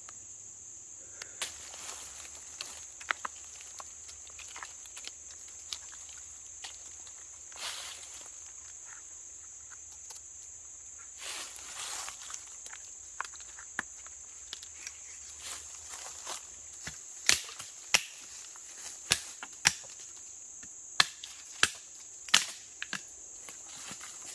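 A steady high-pitched insect chorus, like crickets, drones throughout, with soft rustling. Past the halfway point there is a string of sharp, loud cracks and snaps.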